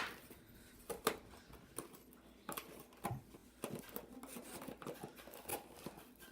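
Hands working at toy packaging: scattered small clicks, snips and rustles of plastic and cardboard, a few every second.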